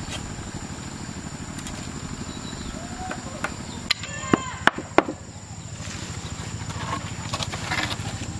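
Machete chopping at a branch: four sharp strikes in quick succession about halfway through, over a steady low rumble.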